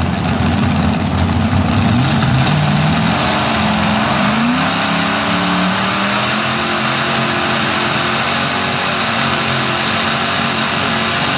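Competition pulling tractor's engine at full throttle while pulling the sled. Its pitch climbs over the first few seconds, then holds steady at high revs.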